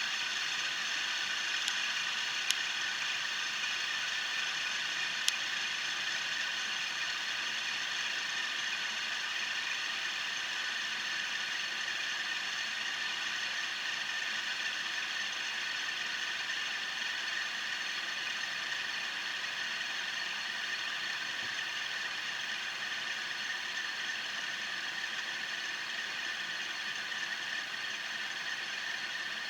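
Fidget spinner spinning on its ball bearing, giving a steady whirring rattle that slowly grows fainter. A few sharp clicks sound in the first few seconds.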